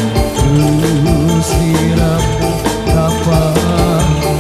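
Music with a steady beat and a wavering melodic line.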